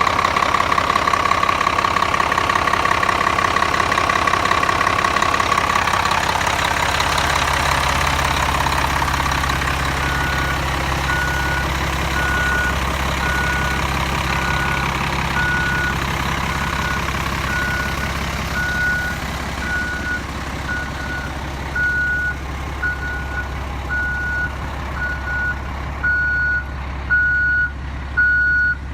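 Blue Bird LTC-40 motor coach's diesel engine running, then settling to a low steady hum. From about a third of the way in, its backup alarm beeps at one pitch about once a second as the bus reverses.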